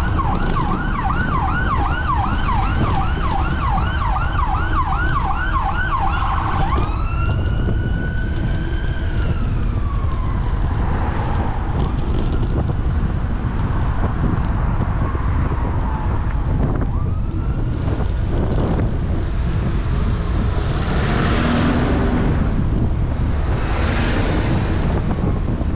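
Emergency-vehicle siren: a fast yelp of about three rising whoops a second that switches, about seven seconds in, to a slower wail rising and falling, then fades. Under it, a steady rumble of wind on the microphone and road traffic, with a passing vehicle swelling near the end.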